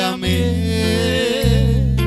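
Live worship music: a voice sings a drawn-out, wavering line with vibrato over electric bass and acoustic guitar, the bass notes changing twice.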